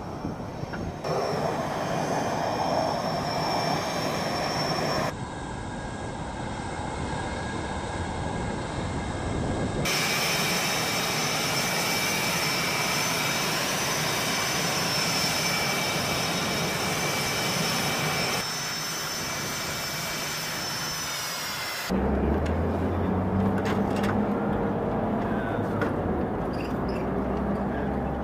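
F/A-18 Hornet jet engines running on the ground: a steady high whine over a rushing noise. It changes abruptly in pitch and loudness several times, and after the last change a deeper steady hum joins in.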